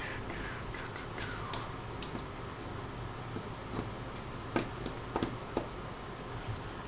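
Small, sharp clicks at irregular intervals and a brief scrape near the start, from handling a smartphone's plastic body and a small Phillips screwdriver as the phone is taken apart.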